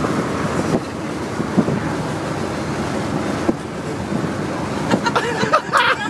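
Steady rumble of a moving bus heard inside the cabin, with wind-like noise on the phone's microphone. Voices and laughter break in near the end.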